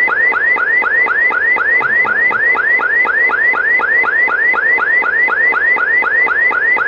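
Amseco VSD-208 voice siren driver sounding its burglary alarm tone through a Simplex LifeAlarm speaker: a fast electronic siren sweep, each one rising quickly in pitch and levelling off, repeated about four times a second. The tone fills the gap between the recorded "Leave immediately… Burglary" voice announcements.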